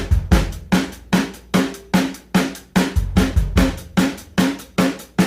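A steady electronic-sounding drum beat of kick and snare hits, about three a second, with a deep bass note coming in under it at times. It is the instrumental intro of a ringtone.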